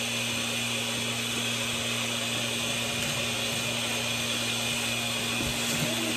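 Electric vacuum pump of a portable goat milking machine running with a steady hum, drawing suction through the teat cups as they are fitted to the udder.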